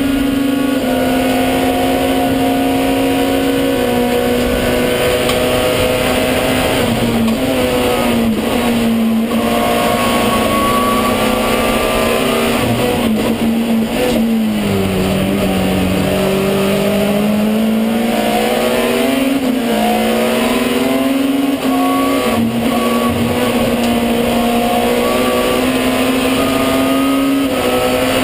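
Alfa Romeo 156 WTCC race car's engine running hard under racing load, heard from inside the stripped cabin. The engine note holds mostly level, with a few small steps. About halfway through it drops in pitch, then climbs back over several seconds.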